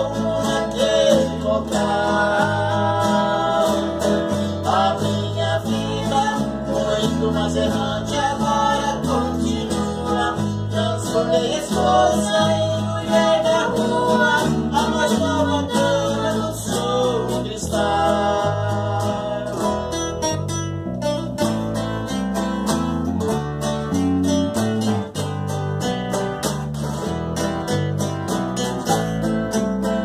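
Instrumental passage on two nylon-string acoustic guitars over a violin-shaped Epiphone electric bass, a plucked melody moving above a steady stepping bass line.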